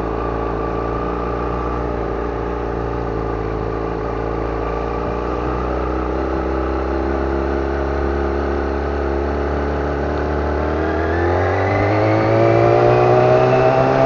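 Yamaha YZF-R6 inline-four engine running at low road speed, then rising steadily in pitch and getting louder over the last few seconds as the bike accelerates.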